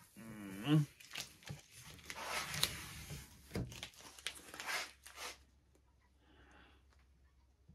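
Yellow tape being peeled off the edge of a cured epoxy-coated board: a short rising squeal near the start, then tearing and crackling as it comes away, stopping about five seconds in.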